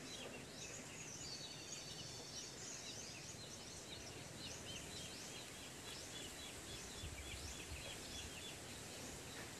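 Faint birdsong: many short, high chirps repeating several times a second over soft outdoor background noise.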